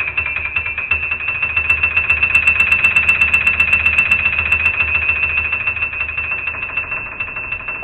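Background music carrying a fast-pulsing, high, bell-like electronic tone, with a quick run of ticks, about six a second, in the middle.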